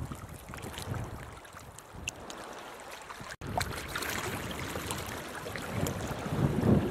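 Wind buffeting an on-camera microphone, with low rumbling gusts. The sound cuts out for an instant about halfway. After that comes a steady hiss of shallow water under the wind, growing louder near the end as the gusts strengthen.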